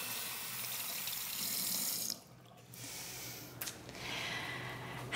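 A steady hiss, like running water, that drops out for about half a second around two seconds in and then resumes more faintly.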